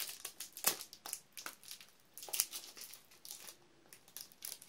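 Tough clear wrapping on a perfume box being picked at, crinkled and torn, in irregular crackles, loudest twice, about two-thirds of a second and two and a half seconds in.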